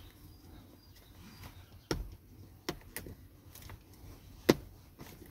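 Seat-cover retaining clips on the back of a VW Passat B8 front seat clicking as the cover is pressed into place. A few separate, sharp clicks, the loudest about four and a half seconds in.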